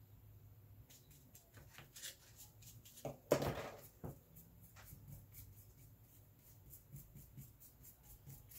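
Wide flat paintbrush scrubbing paint onto a canvas panel in short crosshatch strokes, a rapid run of faint scratchy brushing sounds. One louder, brief sound stands out about three seconds in.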